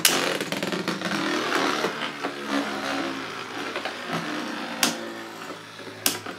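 Two Beyblade Burst spinning tops, Z Achilles 11 Xtend and Maximum Garuda 4 Glaive Weight, whirring and grinding against each other on a plastic stadium floor just after launch, with sharp clacks as they strike at the start and twice near the end. The whirring slowly fades as they lose spin.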